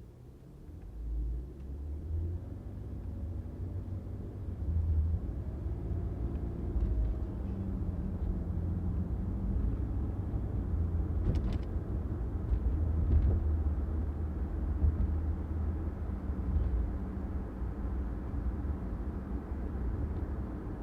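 Car driving on a city street: a steady low rumble of engine and road noise that builds over the first few seconds. A few faint short clicks come about halfway through.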